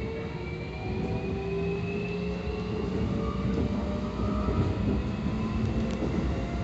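Keikyu 1000 series train with permanent-magnet synchronous traction motors running, heard from on board: a steady rumble of wheels on rail under the whine of the motors and inverter. The whine rises slowly in pitch over the first few seconds as the train picks up speed, then levels out.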